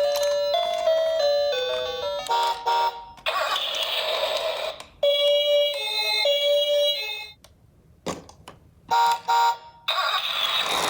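Chime-like background music with quick stepping notes, broken twice by a couple of seconds of noise with no clear pitch, and briefly cut to near silence about three quarters of the way through.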